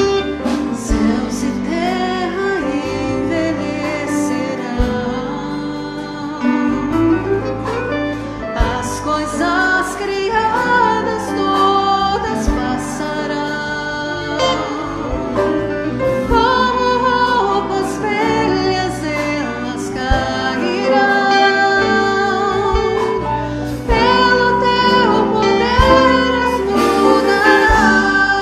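A Portuguese-language hymn sung over instrumental accompaniment, with a steady bass and regular percussion hits.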